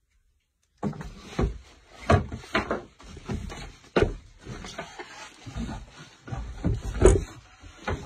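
After a moment of silence, a product is handled out of its cardboard box: plastic wrapping crinkles and rustles, with irregular knocks and thumps against the box, the loudest about four and seven seconds in.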